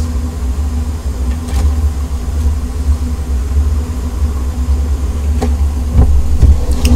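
Portable butane gas burners rumbling steadily under pots of boiling instant noodles. A metal ladle clinks lightly against the pot a few times as cooking water is scooped out of the noodles.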